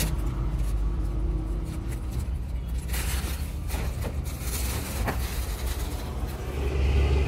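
Steady low engine rumble with a few sharp clicks in the middle.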